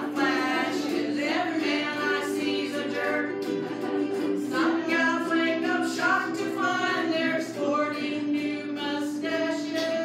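A woman singing a song over strummed ukuleles, in a live performance.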